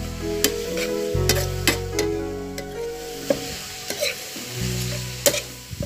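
Metal spoon stirring rice noodles and sausage in a frying pan, scraping and knocking sharply against the pan several times, with the food sizzling. Steady background music plays underneath.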